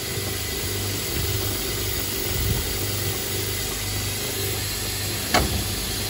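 Steady hum and hiss of an automatic screw assembly machine, with a low buzz that comes and goes, and one sharp click about five seconds in.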